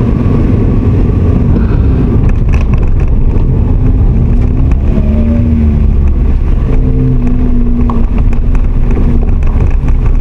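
Kei car's engine and aftermarket rear-piece muffler exhaust heard from inside the cabin while driving, with steady road rumble; the engine note rises and falls as the throttle changes.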